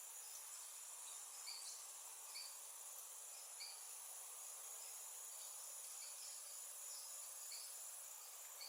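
Faint tropical rainforest insect chorus: a steady, high, even drone of crickets and other insects, with a short chirp repeated about once a second.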